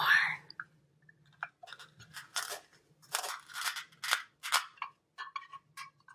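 Hands handling plastic toys and modelling dough: a string of short, irregular clicks, snips and crinkles.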